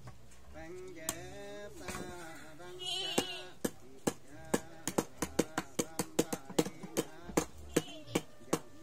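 Chanting in a man's voice, a held and wavering line, as in a Dao cấp sắc initiation rite. Sharp percussion strikes sound over it, a few at first, then quickening to about five a second from about three and a half seconds in.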